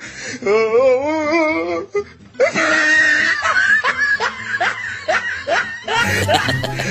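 Loud laughter with a long wavering voice sound, then music with a steady beat cuts in abruptly near the end.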